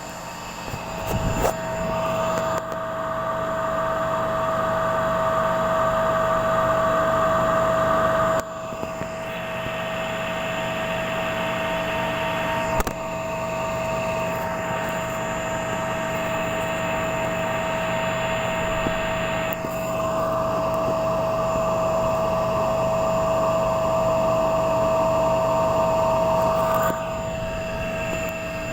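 Three-phase induction motor wired star-delta, running with a steady electrical hum and a high whine. A louder, rougher noise comes in a couple of seconds in, drops away around eight seconds, and returns for several seconds later on. This is the abnormal noise presented as a motor sound problem.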